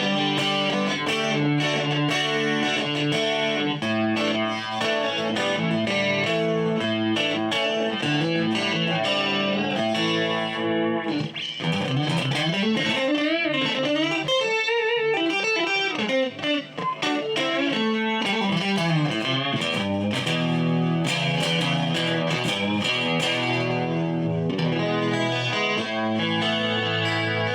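Morgan Legend Series Strat-style electric guitar on its neck pickup with a clean tone, playing picked notes and chords. About halfway through, a passage of wavering, bent notes slides up and down in pitch before the chordal playing returns.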